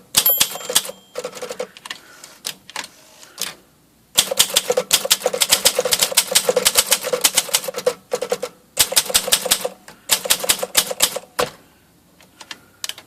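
Olympia SM-3 manual typewriter being typed on: rapid runs of keystrikes, the typebars hitting the platen, in several bursts separated by short pauses.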